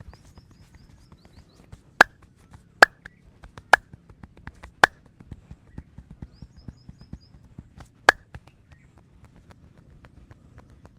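The masseur's hands clapping sharply five times at uneven intervals, amid a run of lighter, quicker hand strikes of the head massage. A bird chirps a quick series of high notes twice.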